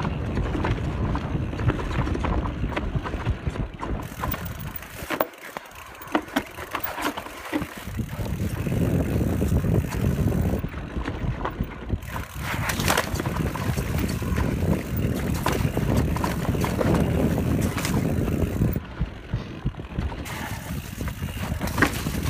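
Canyon Spectral full-suspension mountain bike descending a dirt trail: a constant rumble of tyres and wind on a chest-mounted phone microphone, with frequent sharp clicks and knocks from the bike rattling over the rough ground. The rumble eases for a few seconds about five seconds in, then returns.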